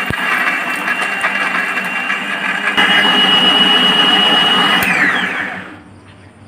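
Electric mixer grinder (mixie) running, grinding coconut chutney, with a steady whine. About three seconds in it gets louder and its whine steps up slightly; about five seconds in it is switched off and winds down with a falling whine.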